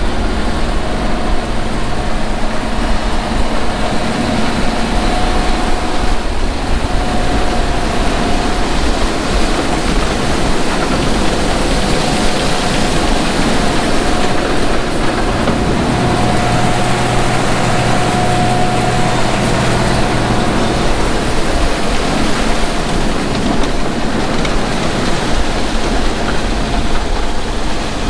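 Case IH combine harvesting soybeans, heard close by: a loud, steady machine noise with an engine hum that deepens for a few seconds midway.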